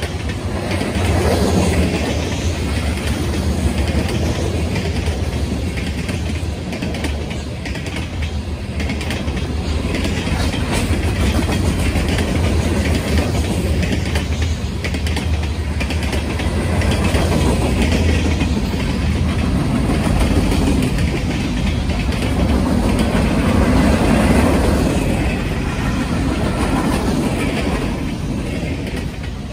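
A freight train of covered hopper cars and tank cars rolling past on the track. Its steel wheels on the rails make a steady low rumble with rapid clicking and rattling.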